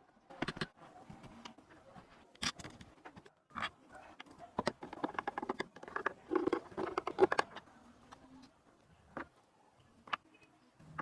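Irregular light clicks and knocks of things being handled, busiest about five to seven and a half seconds in.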